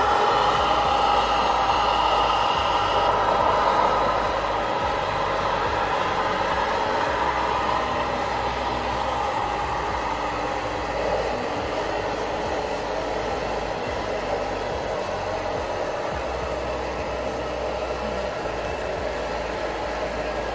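RC model trucks running: a steady mechanical hum and whine with several held tones, a little louder for the first four seconds.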